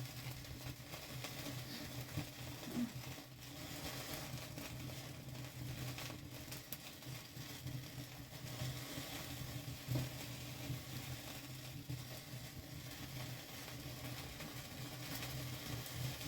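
Steady hissing with a few scattered sharp crackles, from a wood fire burning.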